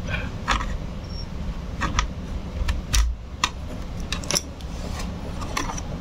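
Plastic snap clips of an Asus X441M laptop's keyboard cover clicking loose as a plastic pry pick works along the seam. The clicks come irregularly, about ten of them, over low handling bumps.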